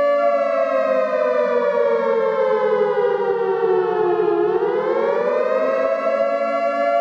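A loud, siren-like tone on two pitches at once. About four seconds in it has slid down in pitch, and it climbs back up to its starting pitch a second or two later.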